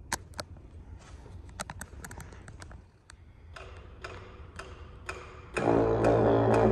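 Sharp clicks and ticks, settling into a regular tick about twice a second; then, about a second before the end, a didgeridoo drone starts abruptly, low and steady with strong overtones, echoing in a large hall.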